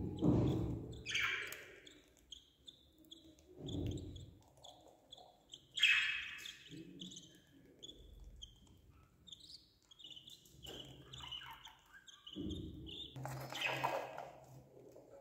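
Budgerigar chicks and their parent in a nest box: many short high chirps, with three louder, harsher calls about one, six and fourteen seconds in, typical of chicks begging as the adult feeds them.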